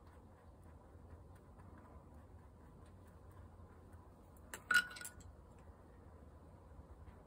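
Art tools knocking together: a short cluster of light clicks and one small clink with a brief ring, about four and a half seconds in, as the pencil is set down and a paintbrush is picked up.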